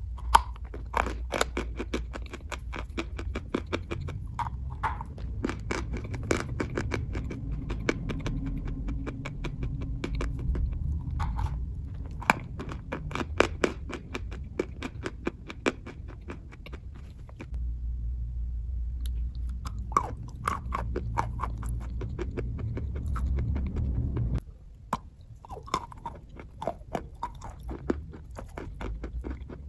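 Dry chalk being bitten and chewed close to the microphone, with runs of sharp, crisp crunches and a short pause about two-thirds of the way through. A low rumble sits underneath and stops abruptly near the end.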